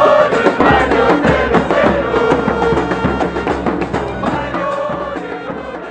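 Intro music with drums and percussion, fading out gradually over the last few seconds.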